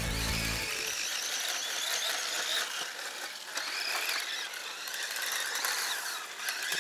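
Yokomo Dogfighter YZ-834B electric RC buggy driving, its motor and gears whining higher and lower with the throttle.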